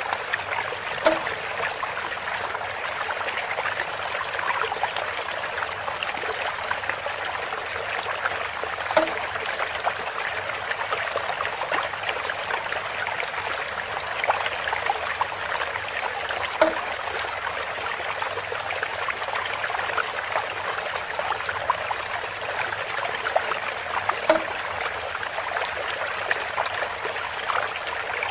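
Water trickling and splashing steadily from a bamboo spout, with a short knock that recurs about every eight seconds.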